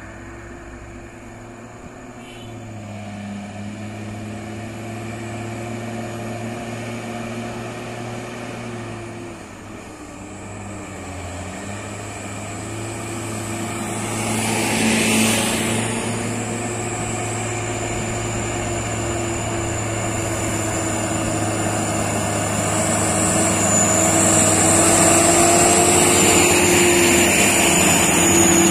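Loaded Hino diesel truck grinding slowly uphill in a low gear, with other trucks' engines close by. Its engine runs steadily and grows louder as it comes nearer. About halfway through there is a short, louder rush as a vehicle passes close, and a high whine comes in over the last third.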